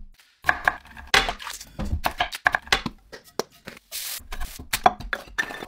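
Onion being handled and chopped on a wooden cutting board: an irregular series of sharp knife knocks and clicks.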